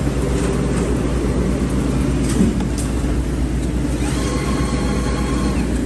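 Fully automatic bedsheet hemming sewing machine running: a steady mechanical hum with a few sharp clicks, and a faint high whine joining about four seconds in.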